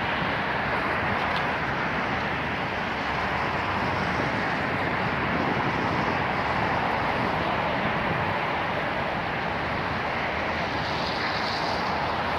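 Steady city traffic noise, an even rush with no distinct vehicles or events standing out.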